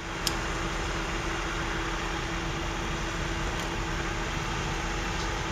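Heavy equipment's engine running steadily at an even speed, a constant hum with no change in pitch.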